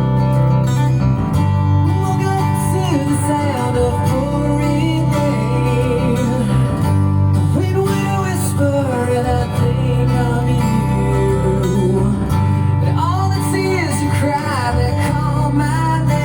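Music: a rock ballad with strummed acoustic guitar and steady bass under a male singing voice.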